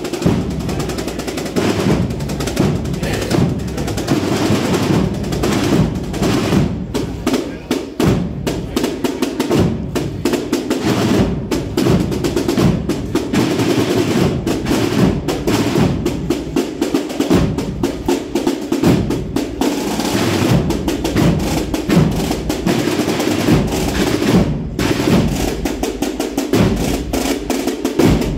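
A Spanish processional band (agrupación musical) playing a march, its snare drums rolling over a bass drum beat.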